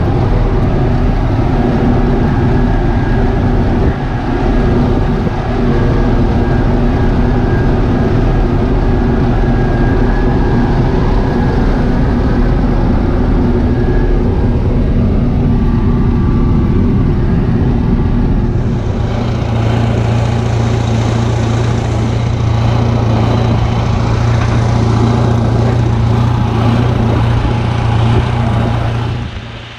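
Kirovets K-700 tractor's YaMZ-238 V8 diesel, freshly repaired after the winter, running steadily under load while pulling a cultivator, heard from inside the cab. About two thirds of the way through, the engine note becomes brighter and hissier, as heard from outside the cab.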